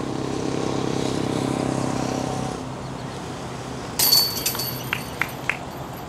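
A passing road vehicle's engine hums steadily and fades out about two and a half seconds in. About four seconds in, a disc strikes the metal chains of a disc golf basket with a loud ringing jangle, followed by three light metallic clinks.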